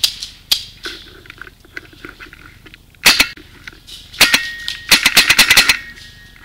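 Paintball marker firing: a few quick shots about three seconds in, a few more just after four seconds, then a rapid string of about ten shots around five seconds in.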